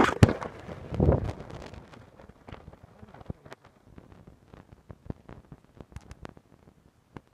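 Irregular clicks, knocks and scrapes of stones and gear as a person crawls through a narrow rocky mine passage, hauling a load on a sling. Louder scraping comes in the first second or so.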